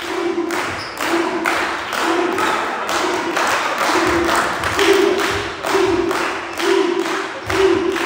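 Rhythmic beating and clapping, with a short low ringing tone on each beat a bit more than once a second, growing louder about halfway through.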